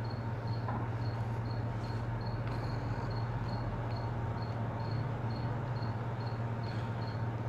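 Steady low hum under a short, high-pitched chirp that repeats evenly about two and a half times a second.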